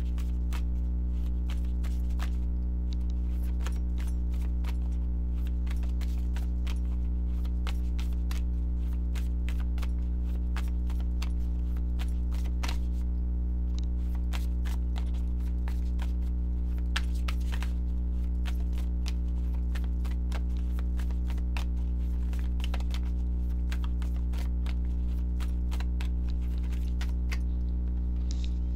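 Steady low electrical hum, with many scattered light clicks and taps from tarot cards being shuffled and handled.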